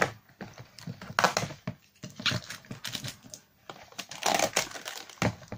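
Thin clear plastic deli tub crinkling and crackling as hands grip it and work at its taped lid, in several short bursts with quiet gaps between.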